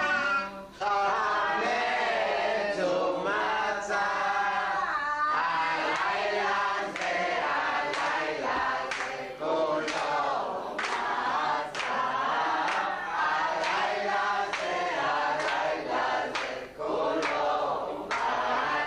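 Several voices at the seder table sing a Haggadah song together, with scattered sharp clicks through the singing.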